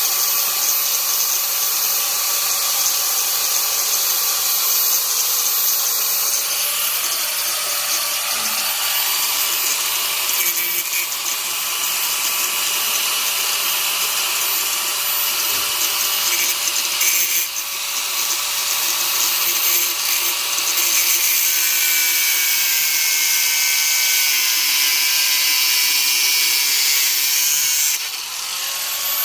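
A handheld electric power tool running steadily under load, its motor tone drifting a little in pitch, with a brief dip about two-thirds of the way in and a drop near the end.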